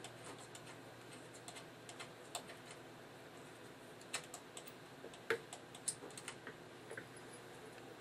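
Irregular light clicks and taps of small screws being handled and fitted at the laptop screen's hinges, with a few louder clicks near the middle.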